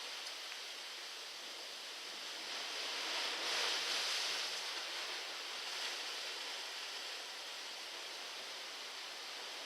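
Ocean waves breaking on a rocky shore: a steady hissing wash of surf, swelling as one wave breaks about three and a half seconds in, then easing back.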